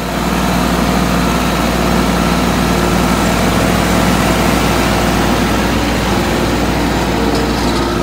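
New Holland tractor's diesel engine running steadily under load while pulling a disc harrow through the soil.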